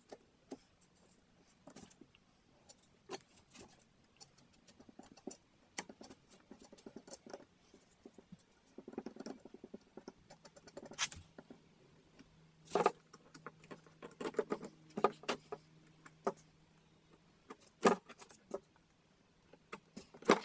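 A small hand tool scraping and tapping against wood as sawdust-and-glue filler paste is forced into gaps in a wooden net frame: irregular small clicks and scrapes, a few louder taps in the second half.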